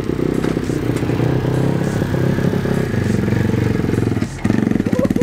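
Small pit bike's single-cylinder engine running at a steady idle, then dropping briefly about four seconds in before revving louder as the bike is put into first gear and pulls away.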